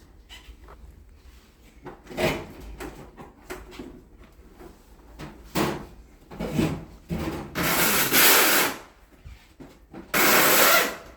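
Hand work with tools and parts: scattered scraping and knocking, then two loud rasping noises about a second long each near the end.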